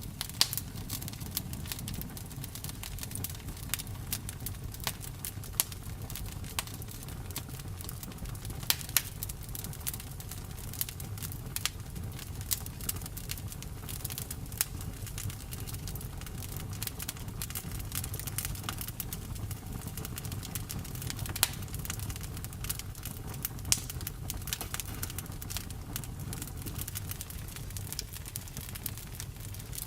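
Campfire burning with a steady low rumble and frequent irregular crackles and sharp pops of the burning wood.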